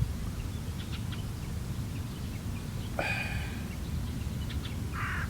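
A wild bird calls twice: a harsh call about three seconds in, lasting under a second, and a shorter one near the end, over a low steady rumble.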